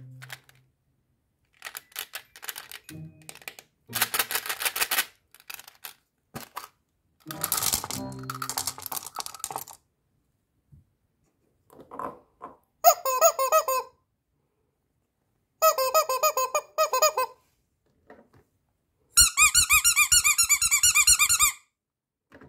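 Hard-coated chocolate candies clattering into a silicone mould, followed by three bursts of rapid squeaking, the last and longest near the end.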